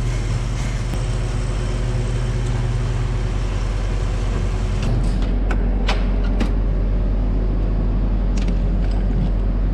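Loader tractor's engine running steadily, a low drone whose tone shifts slightly about halfway through, with a few short sharp clicks or knocks in the second half.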